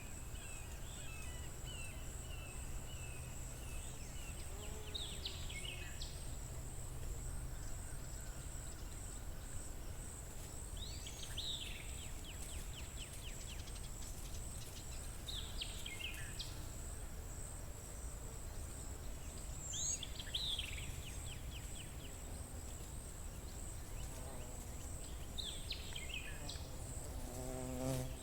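Spring outdoor ambience: a steady, high, evenly pulsing insect trill throughout, with a songbird repeating a short phrase (a quick falling note and a fast trill) about every four to five seconds, over a low steady rumble.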